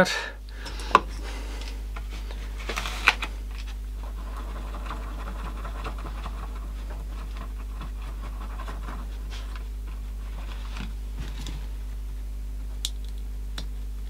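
A steady low electrical hum under faint scratching of a tool on a scrap of card, with a sharp click about a second in and another about three seconds in.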